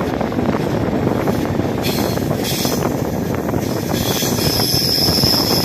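Passenger train coaches rolling round a curve, heard from aboard: a steady rumble of wheels on the rails. A brief high squeal comes about two seconds in, and a steady high-pitched wheel squeal sets in about four seconds in as the wheel flanges rub on the curve.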